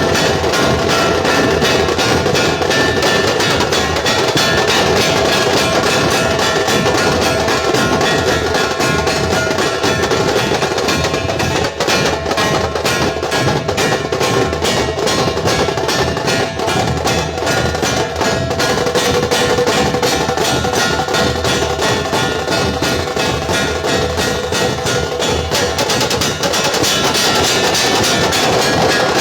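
Dhol-tasha troupe playing loudly: big dhol barrel drums and tasha drums beaten with sticks in a dense, fast, continuous rhythm.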